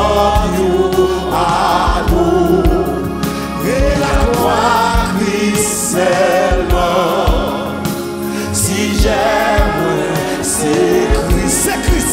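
Gospel hymn sung in Haitian Creole: a man sings lead into a microphone with a choir and instrumental backing with a steady bass.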